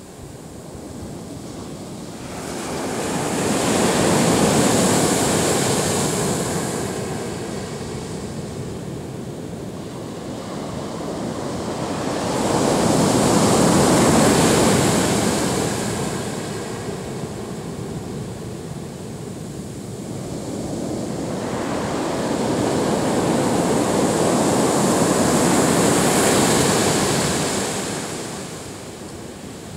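Pacific Ocean surf breaking on a sandy beach: three waves, about ten seconds apart, each a swell of rushing noise that builds, crashes and fades as the water washes up the sand.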